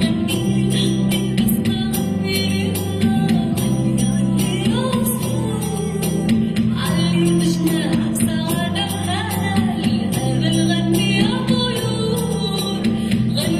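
Music: a song with a singing voice over sustained bass notes and a steady beat of jingling percussion.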